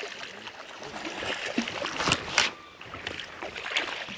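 Hooked bass thrashing and splashing at the surface beside the boat, a run of sharp splashes with the loudest about two seconds in.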